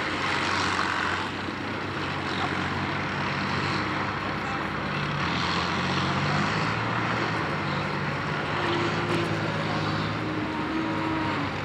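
T-55 tank's V12 diesel engine idling steadily.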